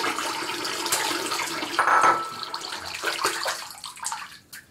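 Water running and splashing, uneven and wet, dying away near the end.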